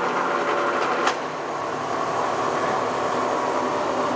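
Century B-40 toolroom lathe running under power, its headstock gearing and feed drive giving a steady mechanical whir with a few steady tones. A sharp click comes about a second in, after which the running is slightly quieter.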